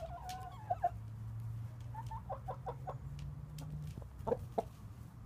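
Jersey Giant chickens clucking close up: a drawn-out call at the start, a quick run of short clucks about two seconds in, and two louder clucks just after four seconds, over a low steady hum.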